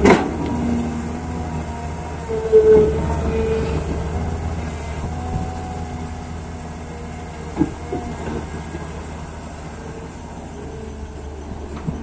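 Diesel engines of an excavator and a dump truck running steadily while the excavator digs and loads soil. A few short clunks, one about two and a half seconds in and another near the eight-second mark, stand out over the steady drone.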